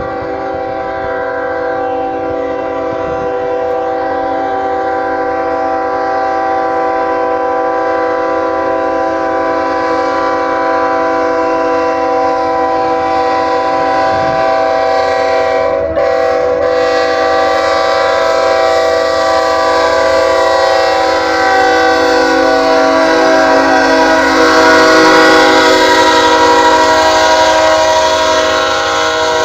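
Diesel locomotive's multi-chime air horn held in one long, loud chord, broken only briefly about halfway. Toward the end the train's running noise grows louder under it.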